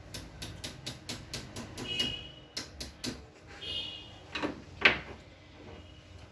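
Homemade high-voltage short-killer's voltage control clicked up through its steps: a quick run of about a dozen clicks, about five a second, then three more. Two louder sharp snaps follow near the end.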